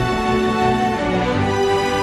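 Background music: sustained instrumental notes in a theme-music style, the chord changing about a second in.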